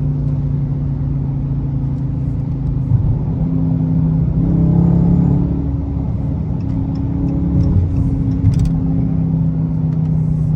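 Dodge HEMI V8 engine droning steadily, heard from inside the cabin while driving, rising briefly in pitch and loudness about four to five seconds in as the car accelerates.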